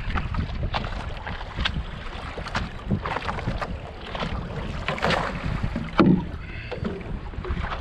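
Wind buffeting the microphone with water splashing and lapping against a foil board in short irregular splashes, and one heavier thump about six seconds in.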